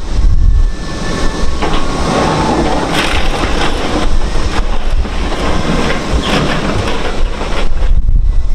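Demolition debris and scrap clattering and crunching as it is handled over a steel skip, mostly through the middle, over a steady low rumble of heavy machinery.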